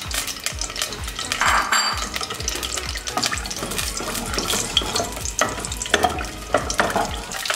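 Whole spices (bay leaf, cardamom, cinnamon) sizzling in hot oil in a pressure cooker, with frequent small crackles, while a wooden spatula stirs them around the pot: the tempering stage of a curry.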